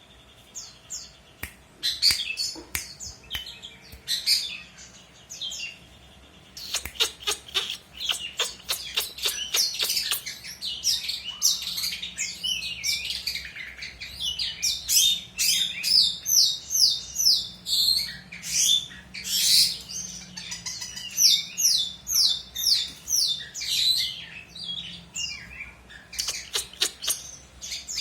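Long-tailed shrike (pentet) singing in full voice: a long, busy chatter of sharp chirps and rapid runs of short notes, with hardly a pause.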